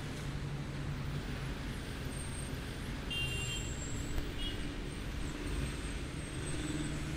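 Steady city street traffic noise: a low rumble of passing vehicles, with a brief high squeal about three seconds in.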